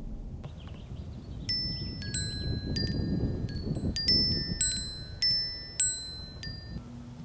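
Metal wind chimes ringing, about ten strikes at irregular intervals sounding several clear, overlapping tones. A low rumble runs beneath them, and the ringing cuts off abruptly near the end.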